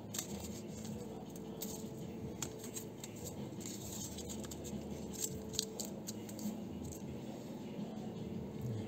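Quiet, irregular small snips, crinkles and clicks of blue tape being cut and handled to label a removed car-roof arm, over a steady low hum.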